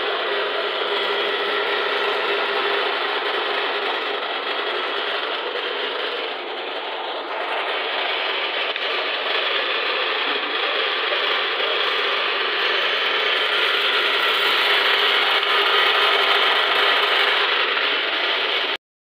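Electric meat grinder running steadily under load as beef and spice mix is pushed through it for kofta. Its motor and grinding worm make a harsh, even mechanical noise that dips briefly a few seconds in and cuts off suddenly near the end.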